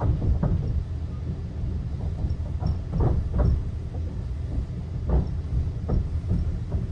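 Inside a Mark 5 sleeper coach moving slowly: a steady low rumble with irregular clunks as the wheels run over the track, about seven in all.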